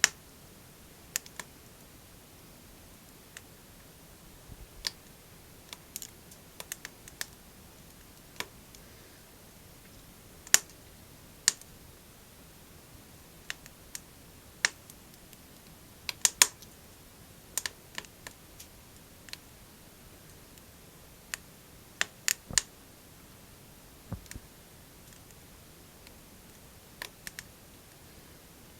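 Wood fire crackling in a small wood stove: irregular sharp pops and cracks, some in quick clusters, over a faint steady hiss.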